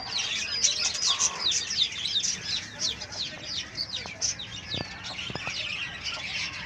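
Country-chicken chicks peeping: a steady stream of quick, high chirps, each falling in pitch, several a second.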